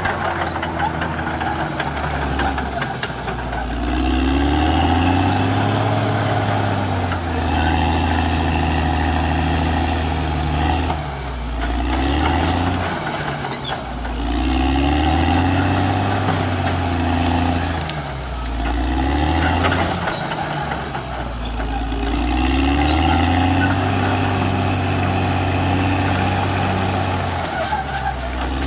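Caterpillar D6R crawler bulldozer's diesel engine working under load as it pushes brush and trees with its blade, its pitch climbing and dropping back several times. A faint high whine comes and goes over it.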